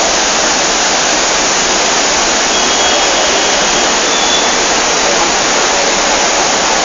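Loud, steady rushing of a river in flood, fast muddy water pouring over and around boulders.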